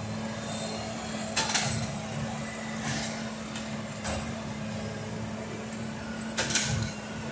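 Engine of a railroad maintenance-of-way machine running steadily as the machine creeps along the track during tie replacement. Three short, sharp noises cut in about a second and a half in, at four seconds and at six and a half seconds, the first and last the loudest.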